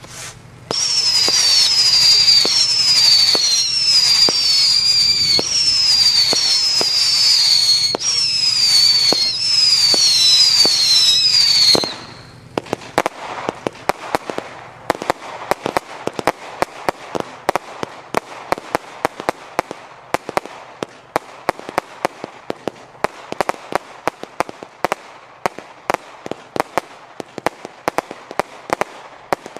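WECO Final Showdown compound firework (13 mm calibre) firing. For the first twelve seconds there is a loud run of shots, with a falling whistle about every three-quarters of a second. Then it turns quieter, with rapid sharp cracks and pops.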